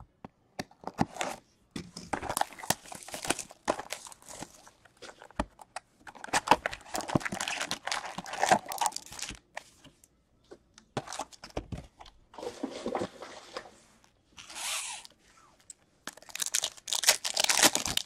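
Trading-card pack wrappers being torn open and crinkled, with cards handled, in irregular bursts of crackling separated by short pauses; the loudest burst comes near the end.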